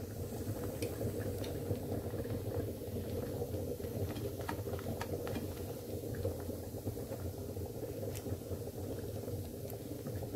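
Oiled roti flatbread frying in a hot pan on its second side: a steady low sizzle of hot oil with scattered faint crackles.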